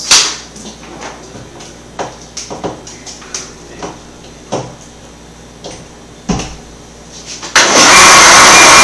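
Scattered knocks and clicks as a countertop blender is handled, then about seven and a half seconds in the blender's motor switches on and runs loud and steady, a dense whir with a faint whine in it.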